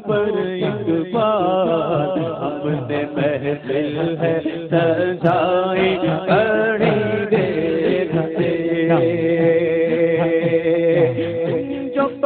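Man singing an Urdu manqabat, a Sufi devotional song, into a microphone: long ornamented phrases with wavering turns and held notes.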